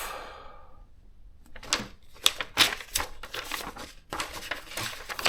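Irregular clicks and rustles of handling, starting about a second and a half in: paper and plastic being moved around a thermal typewriter and its manual.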